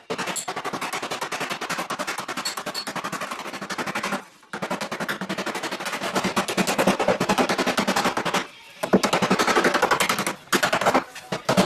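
Body hammer striking the steel hem flange of a door skin against a hand-held dolly, folding the hem seam over the door frame: rapid, evenly spaced metallic blows with a few short pauses.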